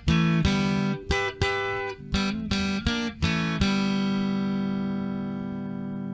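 Stratocaster-style electric guitar with EMG high-impedance single-coil pickups, neck and middle pickups wired in series for a humbucker-like tone, played clean without overdrive. A run of strummed chords comes first, then a last chord struck at about three and a half seconds is left ringing and slowly fades.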